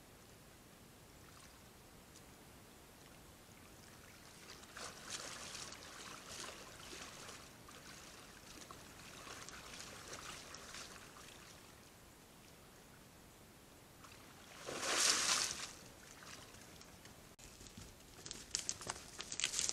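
Red deer hinds wading in shallow stream water: irregular splashing and sloshing with their steps, with one louder splash about three-quarters of the way through. Near the end, a few hoof steps on soft ground.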